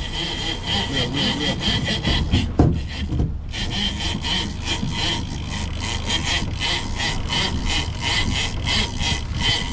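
Big-game fishing reel making a fast rasping, clicking buzz under the pull of a large bluefin tuna on the line, with a short break about three seconds in.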